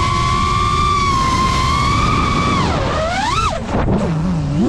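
FPV drone's electric motors whining at a steady high pitch, then swooping down and up sharply as the throttle is chopped and punched through a roll. The pitch dips low about three and a half seconds in before climbing back.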